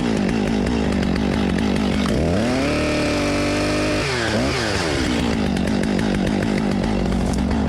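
Chainsaw engine running: it revs up about two seconds in and holds a high pitch for a couple of seconds, drops back with two quick blips, then runs steadily at a lower speed.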